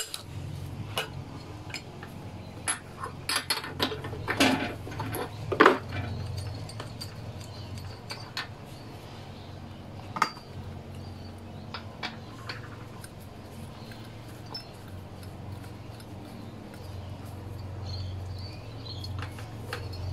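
Scattered metallic clinks and knocks from tools and parts being handled on a lawnmower engine, most of them in the first six seconds, over a steady low hum.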